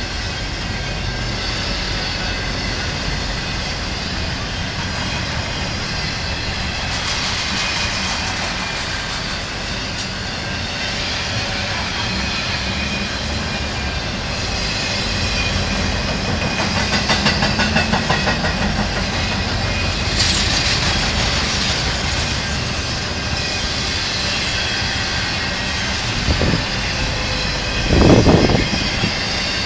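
Cars of an intermodal freight train, loaded with containers and trailers, rolling past with a steady rumble and rattle. Around the middle the wheels click rhythmically over rail joints, and two louder thumps come near the end.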